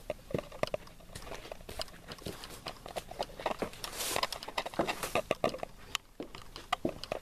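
Footsteps of a person walking on a gritty concrete pad: an irregular run of light scuffs and clicks.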